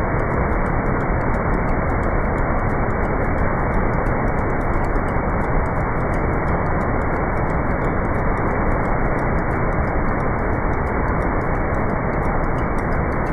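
Waterfall: a loud, steady rush of falling water with no change in level.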